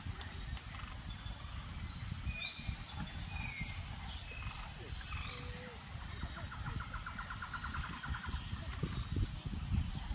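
Outdoor ambience: wind rumbling and gusting on the microphone, with birds chirping and a rapid trill about two-thirds of the way through, and a faint high note repeating about once a second.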